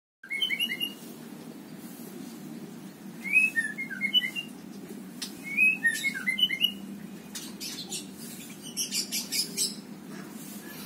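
A songbird chirping in three short bursts of quick rising and falling notes, over a steady low hum. A brief scratchy rattle comes about nine seconds in.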